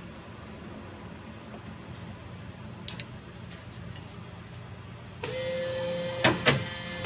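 MEI 2000-series bill validator running its motor on power-up self-test: a steady mechanical whir starts about five seconds in, with two clunks just before it stops. A single click comes about three seconds in.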